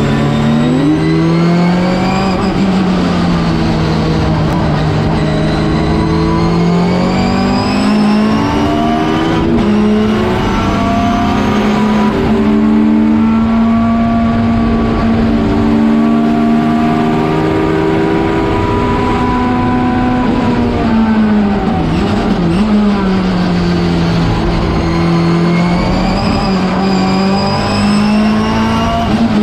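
Schnitzer BMW 320 Turbo Group 5 race car's turbocharged four-cylinder engine under hard racing load, heard from inside the cockpit. The revs climb and drop with gear changes and corners, hold high and steady through the middle, fall back about two-thirds of the way through and climb again near the end.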